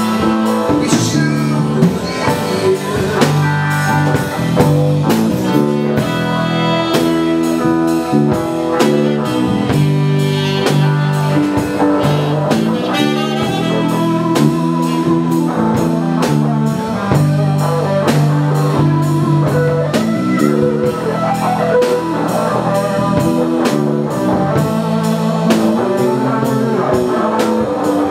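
Live dance band playing, electric guitar leading over bass and a steady drum-kit beat.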